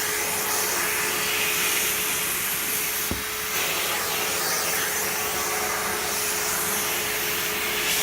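Vacuum cleaner running steadily, its nozzle being drawn over a pet's fur as grooming. About three seconds in there is a short thump, and the hiss briefly drops before returning.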